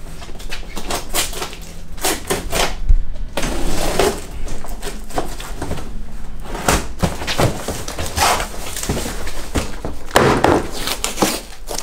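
Board packaging being unwrapped and torn open: irregular crackling, ripping and rustling with occasional knocks, and a louder rip about ten seconds in.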